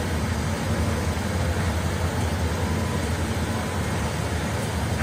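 Locomotive engine running steadily at idle, a constant low rumble.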